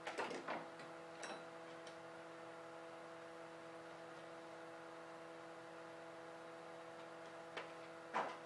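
Steady electrical hum of several constant tones in a quiet room. A few light clicks and knocks come in the first couple of seconds and again near the end, as the hanging pelt is handled.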